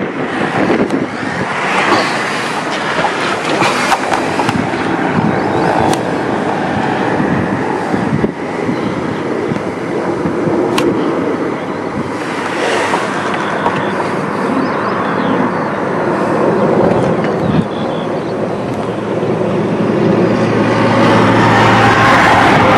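Military transport helicopter flying, its rotor and turbine noise a steady rumble that grows a little louder near the end.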